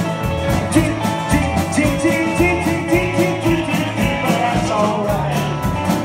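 Live rockabilly band playing: acoustic and electric guitars over a steady, driving beat of about four strokes a second.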